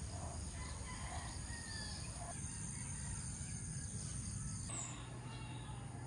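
Outdoor ambience: a steady background hiss with a distant rooster crowing and birds calling. The background changes abruptly twice.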